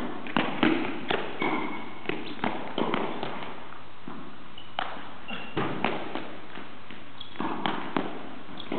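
Footbag net rally: irregular soft thuds of the footbag being kicked and players' feet landing on the hard court floor, with a few short high squeaks of shoes on the floor. The hits ring briefly in the hall.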